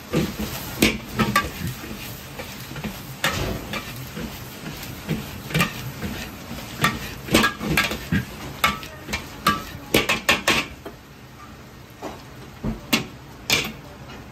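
Metal wok ladle clanking and scraping against an iron wok as fried rice is tossed and stirred, over a steady hiss of frying. The knocks come thick and irregular for about ten seconds, then only a few spaced strikes near the end.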